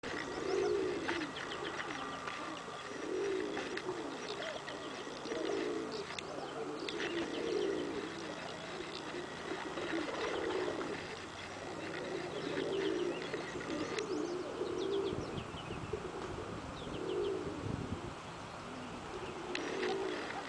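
Cock pigeons, a tippler/pouter first cross, cooing: a low coo repeated about every one to two seconds. Higher bird chirps come and go behind it.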